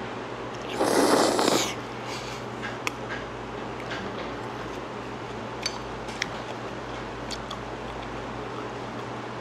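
Thick wheat noodles (bibim-guksu) slurped once, loudly, for about a second just after the start, followed by a few light clicks over a steady low hum.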